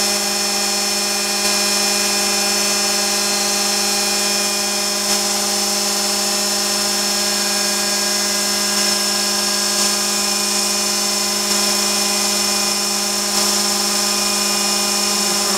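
Gorton 0-16A Super Speed vertical mill spinning a large router bit at high speed as it cuts a channel in a block of Claro walnut, with a shop vac running at the cut. A steady, unbroken machine sound that holds the same pitch throughout.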